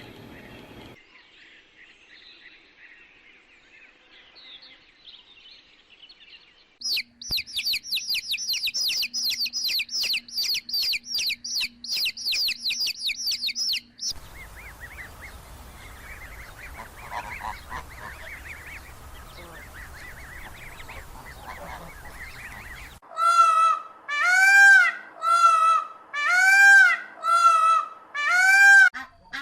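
Birdsong in several short clips. First comes a rapid, high trill of repeated chirps lasting several seconds, then fainter chirping over background noise. Near the end, a series of loud honking calls about a second apart, the loudest sound here.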